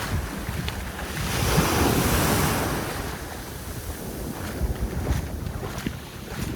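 Sea waves breaking and washing up a sandy beach, one wave swelling to its loudest a second or two in and then fading back. Wind buffets the microphone with a low rumble.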